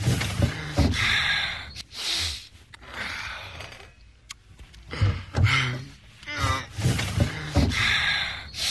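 A person breathing heavily in loud, gasping breaths, roughly one a second.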